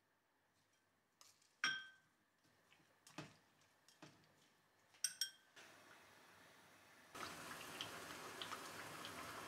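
Glassware and wooden chopsticks clinking: a bright ringing clink about a second and a half in, a duller knock, and a double clink around five seconds as greens are tipped into a glass cup and tossed. About seven seconds in, a steady hiss with faint crackles starts.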